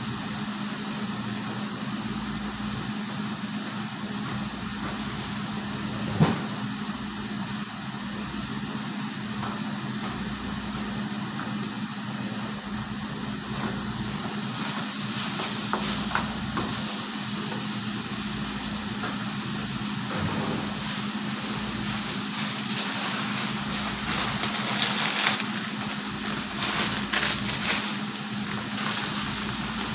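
Steady whir of a kitchen range hood fan over food sizzling in a frying pan. A wooden spatula stirs and scrapes in the pan from about halfway, in clicking bursts near the end, with a single sharp knock about six seconds in.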